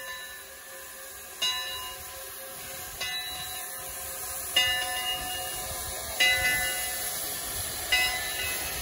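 Steam locomotive bell ringing slowly, about one stroke every second and a half, each stroke ringing on, over a steady hiss of steam venting from the cylinder cocks.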